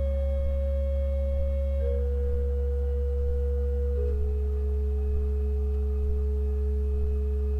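Pipe organ sustaining a loud, deep, unchanging bass note with a softer steady middle note, while a single upper note steps slowly downward, each pitch held for about two seconds before dropping.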